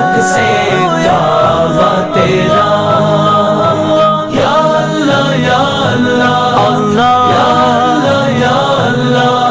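An Islamic naat sung a cappella by layered, choir-like voices, holding long notes that slide and bend between pitches.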